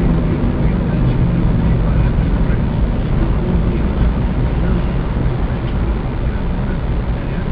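Steady low rumble of a moving vehicle's engine and road noise.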